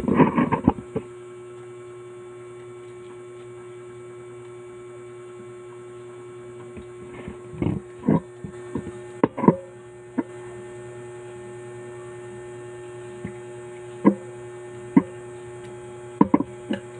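Steady electrical mains hum, with brief knocks and clicks every few seconds: a cluster at the start, several in the middle and a few near the end.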